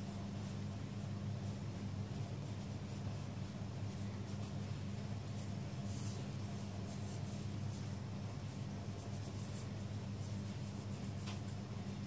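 Blue marker with a cut chisel tip stroking across notebook paper in cursive calligraphy, giving light, irregular scratchy strokes. A steady low hum runs underneath.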